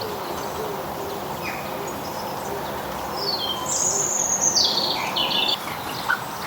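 A small garden songbird singing a phrase of high, tumbling notes that fall in pitch, starting about three seconds in, with a few short chirps around it over a steady background hiss.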